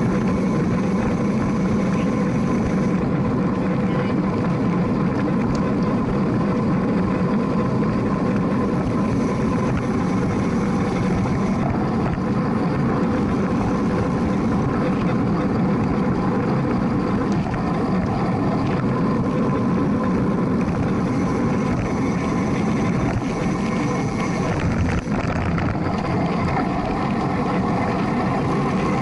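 Steady rush of wind and road noise on a bike-mounted camera as a road bike is ridden at about 24 to 26 mph.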